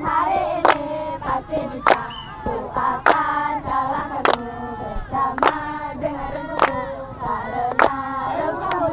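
A group of children singing a Scout troop cheer song (yel-yel) together in unison, with a sharp clap keeping time roughly every 1.2 seconds.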